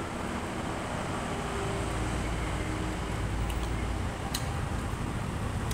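A low motor-vehicle engine rumble, growing louder from about two seconds in, with a few faint sharp clicks.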